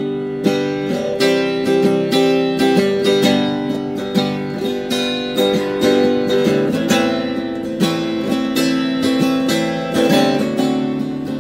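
Acoustic guitar strummed in a steady rhythm, with no singing; the chords change about halfway through.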